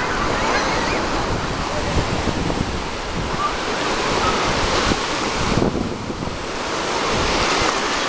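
Small Black Sea waves breaking and washing up over the sand in the shallows: a steady rushing surf, with wind on the microphone.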